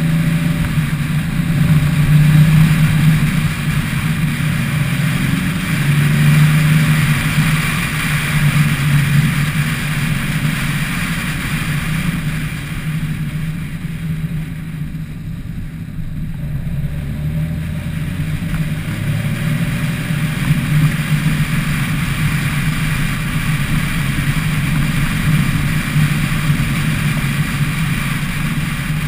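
Car engine running steadily under way, with wind and road noise, heard from a microphone on the car's roof; the engine eases off for a few seconds about halfway through, then pulls again.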